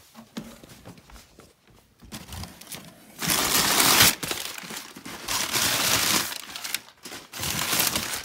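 Crumpled packing paper crinkling and rustling as it is handled in a cardboard box. Faint at first, it grows loud and busy about three seconds in, with brief pauses.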